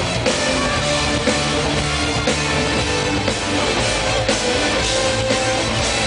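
Loud pop-rock band music with a steady drum beat and guitar, played over an arena sound system.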